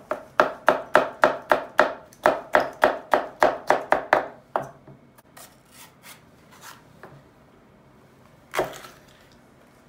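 Chef's knife chopping a hot pepper on a plastic cutting board: a quick, even run of sharp chops, about four a second, for roughly four seconds. A few light taps follow, and there is one louder knock near the end.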